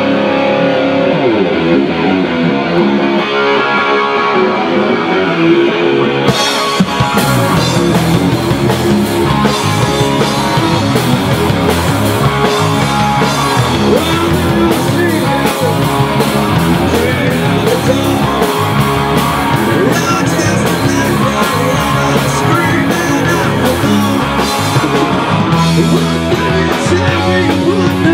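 Rock band playing live in a rehearsal room, with electric guitars, bass and drums. The guitars open without cymbals, and the drum kit's cymbals come in about six and a half seconds in.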